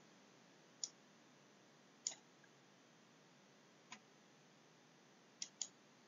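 Five faint, sharp clicks over near-silent room tone, spread out and irregular, with the last two close together near the end. They come from annotating the slide with a mouse or stylus.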